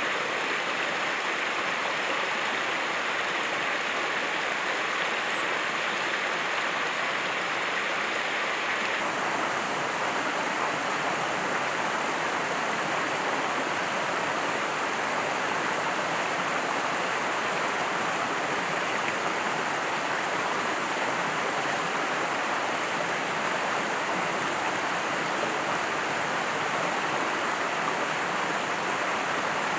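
Mountain stream rushing steadily over rocks. The water sound shifts slightly about nine seconds in.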